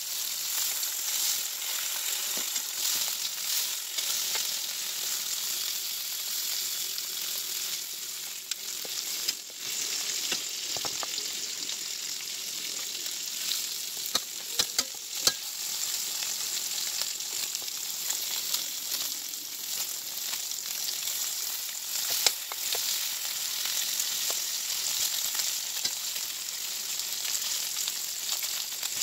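Bacon sizzling in fat in an electric skillet, a steady crackling hiss, with a few sharp clicks as metal tongs turn the slices against the pan, about a third of the way in, around halfway, and again later.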